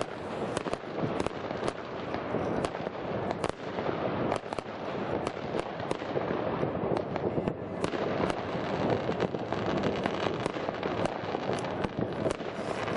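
Fireworks going off all around at New Year: a continuous crackling din with many sharp bangs scattered throughout, no pause.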